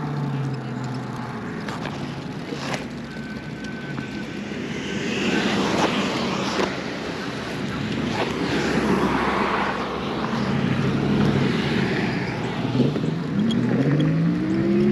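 Wind and road noise rushing past an electric moped ridden at speed, with a rising whine near the end as it accelerates.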